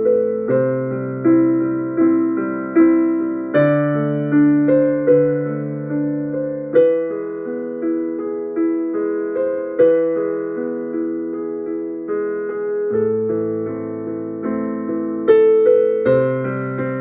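Background music: a slow electric piano playing single notes and chords, each struck and left to fade.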